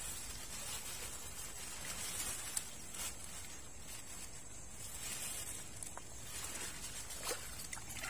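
Steady outdoor hiss of a riverbank, with a few faint clicks and taps from handling gear.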